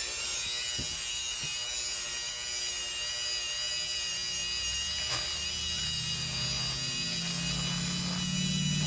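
Small motorised tool, such as a rotary tool or drill, running steadily as it cuts into a circuit board, with a lower hum growing stronger from about six seconds in.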